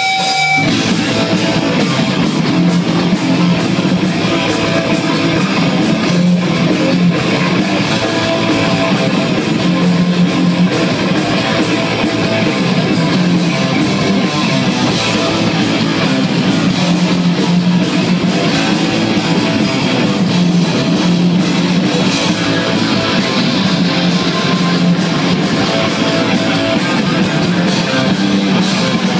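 Heavy metal band playing live and loud: distorted electric guitars, bass and a drum kit.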